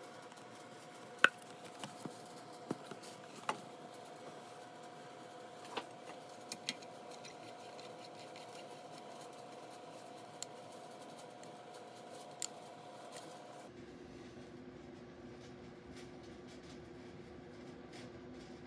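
Scattered small metallic clicks and taps as an RF vector impedance analyzer is handled and fitted onto an antenna's coaxial connector, the sharpest click about a second in, over a faint steady hum.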